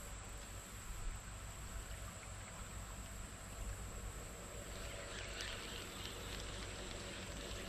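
Quiet outdoor creek ambience: a low steady rumble under a constant high-pitched insect drone, with a faint crackling hiss rising about five seconds in.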